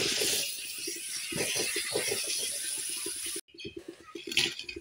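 Dry papery skin of a red onion crackling and rustling as it is peeled off by hand with a knife. It cuts off suddenly about three and a half seconds in, then a few light clicks follow near the end.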